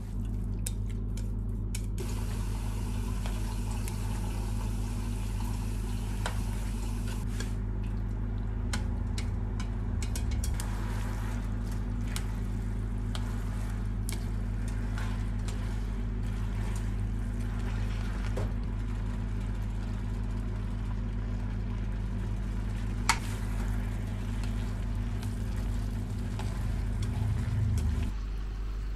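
Glass noodles, vegetables and beef being stirred and tossed with wooden chopsticks in a stone-coated frying pan on the heat, a light sizzle with scattered clicks of the chopsticks against the pan, one sharp tick about two-thirds through. A steady low hum runs underneath and drops away near the end.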